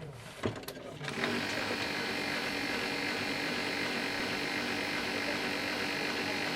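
A click, then about a second in a small motor starts and runs steadily with an even hum.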